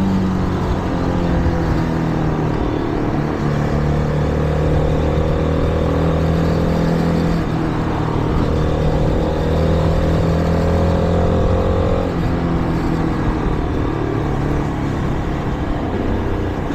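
Shineray Flash 250F motorcycle engine running at a steady cruising pitch while riding, with rushing wind noise; the engine note changes and drops about 12 seconds in.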